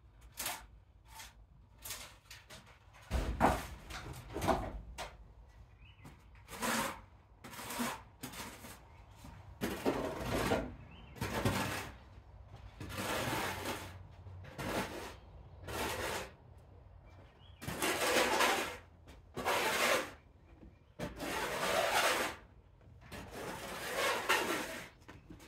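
Kittens' claws scrabbling and scratching on a playpen's mesh sides and fabric, in repeated rasping bursts of about a second each.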